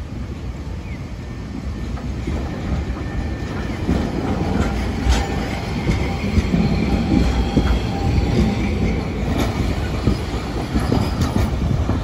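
Low-floor articulated tram passing close by on street track, wheels rumbling with a faint squeal, and sharp clicks as the wheels cross rail joints, about twice.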